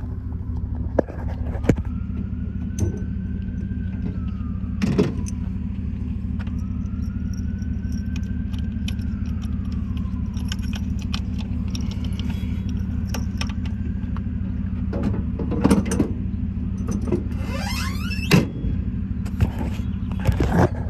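The truck's 6.0-litre gas V8 idling steadily, with scattered clicks and knocks from handling. A faint whine rises and falls twice, and a short squeal comes near the end.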